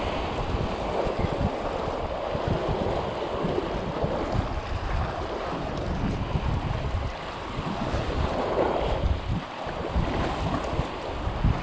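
Wind buffeting the microphone over the steady wash of sea water.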